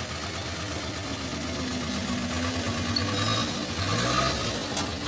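A vehicle engine idling steadily, with a brief rise in engine pitch near the end.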